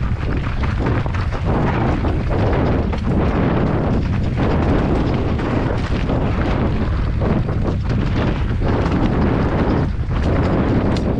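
Heavy wind buffeting on a helmet-mounted camera's microphone while riding fast over a rocky dirt trail, with frequent rattling knocks from the bike jolting over stones.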